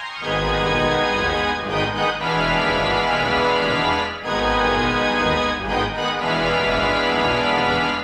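Möller pipe organ played by its roll player: a loud full-organ passage of held chords over deep bass notes, with a brief break about four seconds in.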